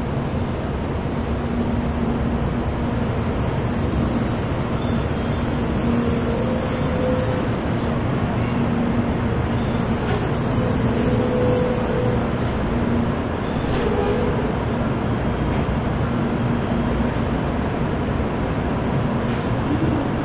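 N700-series Shinkansen, an eight-car JR West/Kyushu set, pulling slowly along the platform and drawing to a stop. There is a steady low rumble of wheels and running gear with a faint motor hum, and high hissing sounds that come and go during the first dozen or so seconds.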